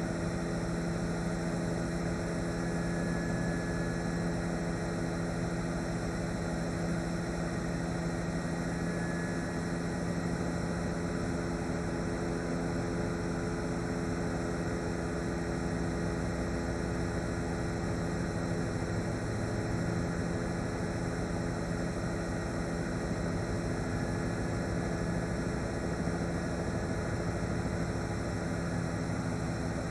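Steady drone of a helicopter's engine and rotor, picked up on board, with several held tones over an even rushing noise that does not change.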